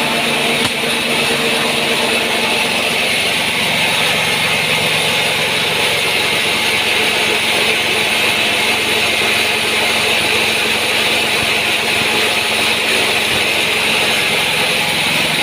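Diesel-powered coffee bean hulling machine (selep) running steadily, a constant loud engine drone mixed with the hiss and rattle of the mill.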